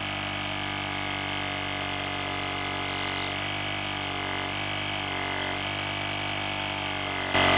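Syncwire cordless tire inflator's electric air compressor running steadily in its ball preset, blowing air out of the open hose end; it swells briefly louder, then cuts off suddenly near the end.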